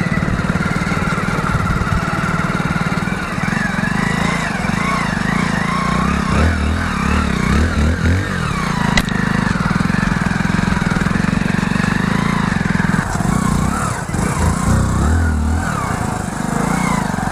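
Small motorcycle engine running steadily under way, heard close to the exhaust, with low rumbles from the rough dirt track and a single sharp knock about nine seconds in.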